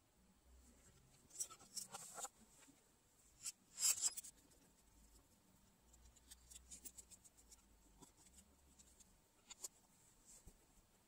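Faint handling noise of the opened Feiyutech WG2 gimbal's plastic parts and circuit board: scratchy rubbing and small clicks, with the loudest scrape about four seconds in and a run of light ticks a little later.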